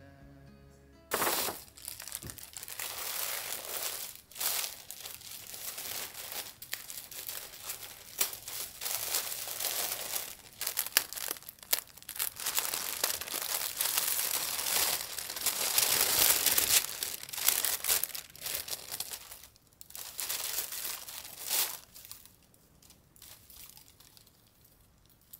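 Tissue wrapping paper rustling and crinkling in irregular handfuls as it is peeled open and unfolded by hand. It dies down a few seconds before the end.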